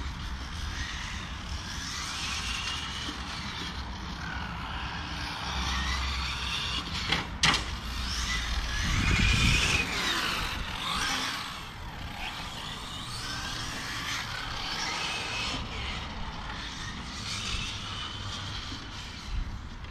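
Motors of electric 1:8 GT RC cars (Serpent SRX8 GTe class) lapping a track: several whines rising and falling with throttle, sometimes overlapping, over wind rumble on the microphone. A sharp click sounds about seven and a half seconds in.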